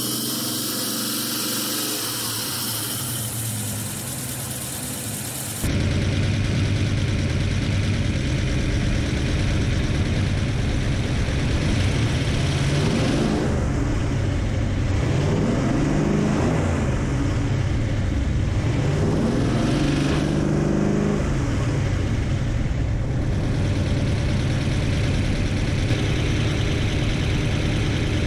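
Rebuilt, cammed 351 Cleveland V8 idling, getting louder about five seconds in. Midway its speed rises and falls several times as the distributor is turned by hand to change the ignition timing.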